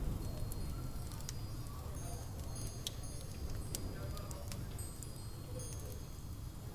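Room ambience track: a steady low rumble under scattered small crackling clicks, with brief high chime-like tinkles at several points.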